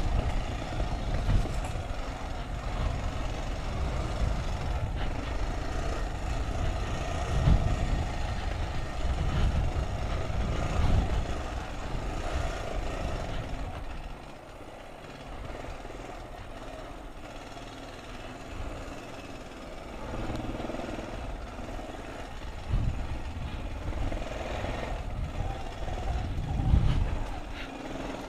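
ATV engine running while riding over a rough dirt trail, with low thumps from bumps in the ground. It runs quieter for several seconds in the middle, then picks up again.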